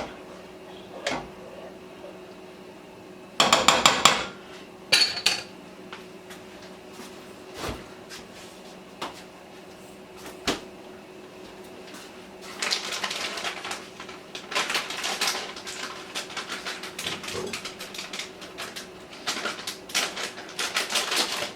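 A utensil knocking and scraping against a cooking pot, with a short clatter about three seconds in and a long run of quick scraping strokes over the second half, as the pot pie filling is worked in the pot.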